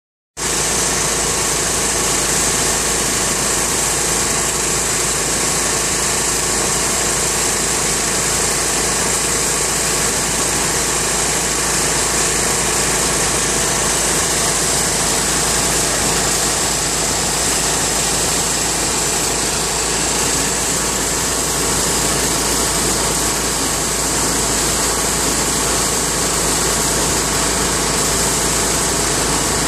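Steady, unbroken hiss of compressed air with a low motor hum: an air spray gun laying down base colour on a car bumper, with the blower of an inflatable paint booth running.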